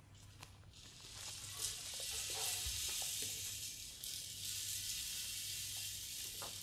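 A steady high hiss, like static or white noise from the performance's electronic soundtrack, fades in about a second in and holds for several seconds over a constant low hum. A few faint soft knocks sit under it.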